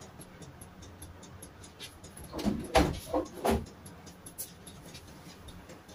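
Countertop electric oven's hinged glass door being opened: a few sharp clunks and knocks about halfway through, over a faint, fast, steady ticking.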